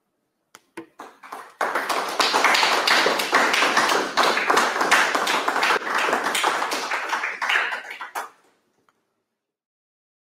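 A small audience applauding: a few scattered claps, then steady applause for about six seconds that stops quickly.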